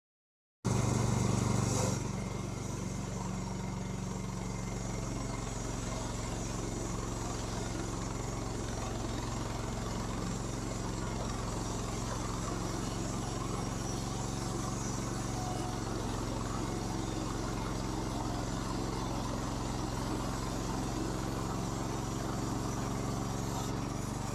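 Rima RS31G portable band sawmill running under power: its gas engine holds a steady speed while the sawhead is pushed through a log. The sound cuts in suddenly about half a second in, a little louder for its first second and a half.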